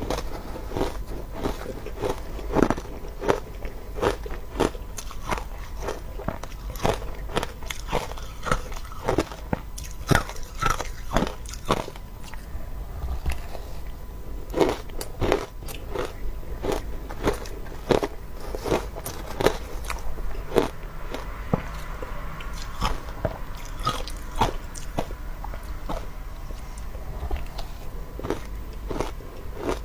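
Close-up biting and chewing of crunchy shaved ice: a run of sharp, irregular crunches, one or two a second.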